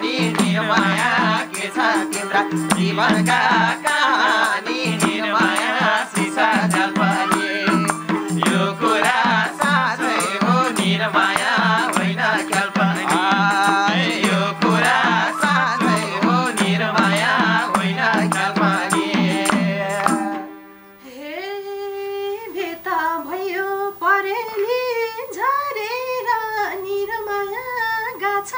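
Nepali live dohori music: harmonium, madal drum and bansuri flute with steady hand-clapping and men singing along. The band stops suddenly about two-thirds of the way through, and a woman then sings a solo line almost unaccompanied.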